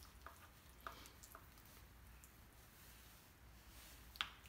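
Mashed avocado being stirred with a plastic spoon in a ceramic bowl: near silence broken by a few faint clicks of the spoon against the bowl, the clearest about a second in and near the end.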